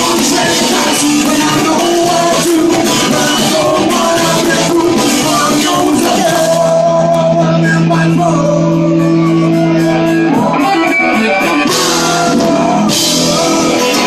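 A live rock-and-roll band playing with strummed acoustic guitar, electric guitars, drums and singing. About six seconds in the band settles into a long held chord, with cymbal crashes near the end, as the song comes to its close.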